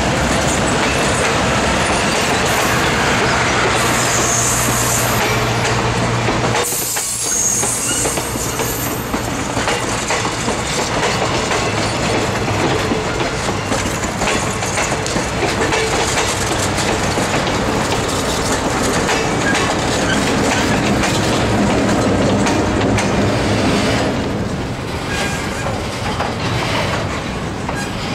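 Passenger cars of a train rolling past at close range, steel wheels clicking rhythmically over rail joints, with the train's trailing EMD GP38-2 diesel locomotive passing later on.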